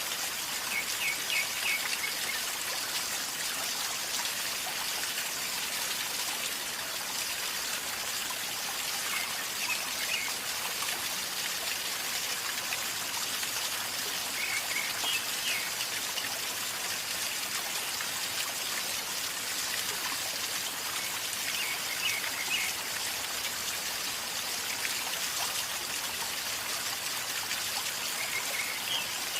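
River water flowing and gurgling steadily, with a bird giving short high chirps now and then.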